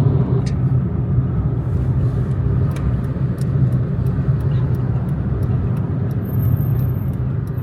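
Steady road and engine noise inside a moving car's cabin, a low rumble that stays even throughout.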